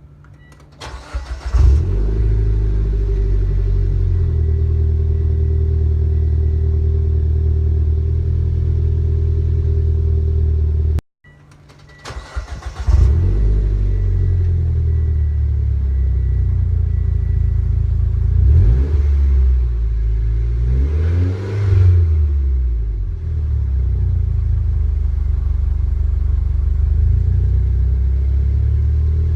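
Mitsubishi Lancer Ralliart's turbocharged 2.0-litre four-cylinder running through an aftermarket Hyperflow cat-back exhaust. It is started and idles steadily, then after a cut it is started again and given two short blips of the throttle before settling back to idle.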